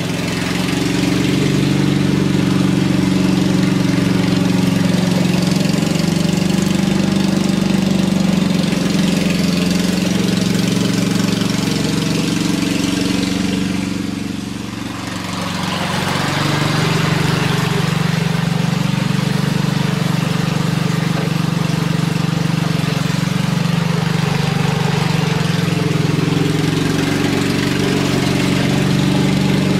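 Simplicity lawn tractor's 16 hp Kohler engine running steadily without stalling as the tractor is driven around. It fades briefly about halfway through, then comes back up. This is a test run after the flooding carburetor was cleaned out.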